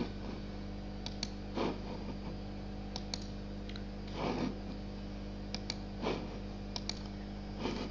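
Light computer clicks in quick pairs, four times, as the lecture slide is advanced. Between them come soft short puffs of noise, over a steady electrical hum.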